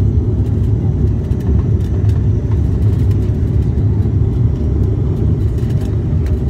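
Steady low rumble of a Porter Airlines Dash 8 Q400 turboprop heard from inside the passenger cabin.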